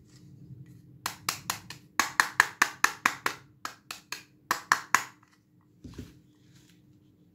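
Rapid sharp plastic clicks, about five a second in short runs, from a pink toy hair dryer being worked in the hands, followed by a single soft knock.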